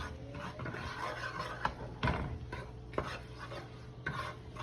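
A spoon stirring curry toasting in a cooking pot, scraping and knocking against the pot a few times.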